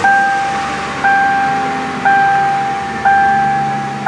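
2000 Ford Crown Victoria's warning chime dinging about once a second, each single ding fading away before the next. The just-started V8 idles faintly underneath.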